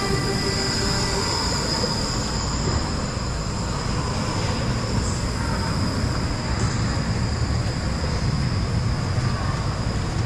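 Indoor Ferris wheel turning, heard from a rider's gondola: a steady mechanical rumble with a faint high whine.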